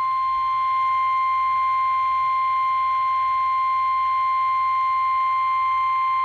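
NOAA Weather Radio's 1050 Hz warning alarm tone: one steady, high-pitched tone held at an even level. It signals that a warning, here a special marine warning, is about to be read.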